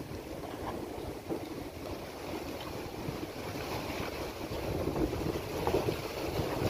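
Wind buffeting the microphone: a steady rumble with no distinct events, growing a little louder near the end.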